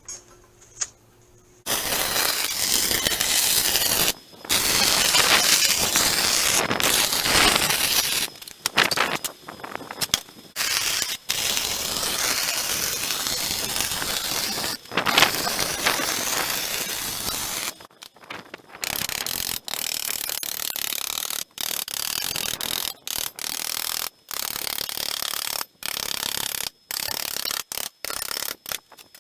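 Welding arc on thin gas-bottle steel, crackling in long runs, then in many short bursts with abrupt stops in the second half.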